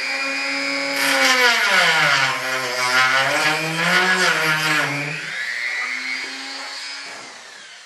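Small handheld power tool motor running. Its pitch sags for a few seconds as it bears down in the cut, then comes back up, and it winds down with a falling whine near the end.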